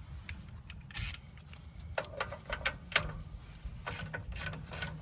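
Tensioner on a Vermeer SC48TX stump grinder's rubber track being cranked tighter by hand, giving a run of irregular sharp metal clicks, loudest about one and three seconds in.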